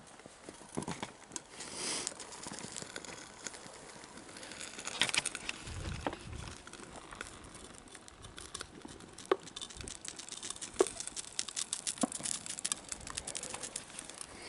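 Burning trash crackling and popping in an open fire, with many irregular sharp snaps that grow denser near the end, and a few heavier rustling, crunching sounds near the start and about five seconds in.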